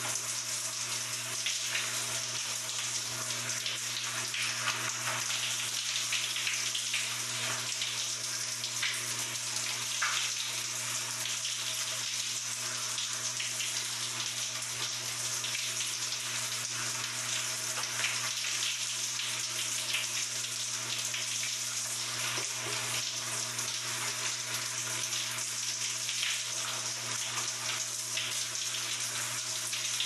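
Showerhead spraying water in a steady, even hiss, with a faint low hum underneath.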